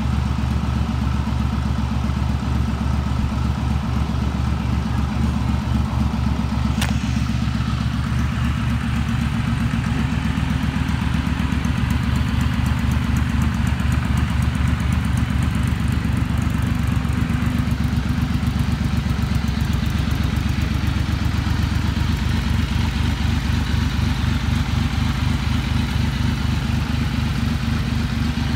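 1999 Triumph Thunderbird's 885 cc three-cylinder engine idling steadily, still warming up after a cold start. There is a single sharp click about seven seconds in.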